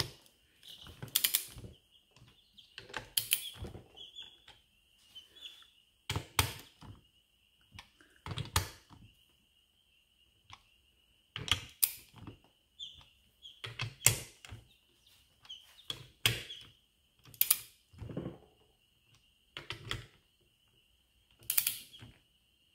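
Torque wrench ratchet clicking in short bursts, about a dozen, a second or two apart, as the small bolts on a hydrostatic transmission's aluminium case are run down.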